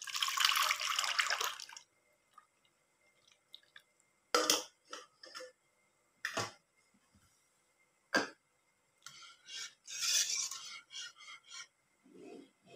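Palm-sugar and coconut-milk mixture poured from a steel pot into a saucepan for about two seconds, then a series of scattered knocks and scrapes of pot and utensil as the liquid is stirred.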